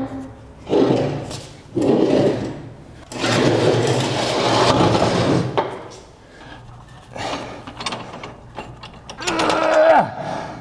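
Kubota mid-mount mower deck being pulled out from under the tractor and dragged across a concrete floor: a few short clunks and rattles, then a longer stretch of scraping and rolling on its caster wheels, then more short knocks.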